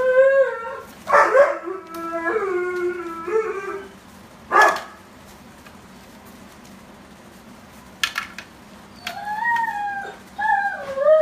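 Puppies whining and howling in drawn-out, wavering whines, with a couple of short sharp yelps between them.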